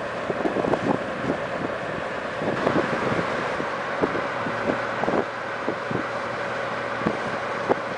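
A car driving at speed, heard from inside: steady road and wind noise with a held hum, broken by many short, irregular thumps of wind on the microphone.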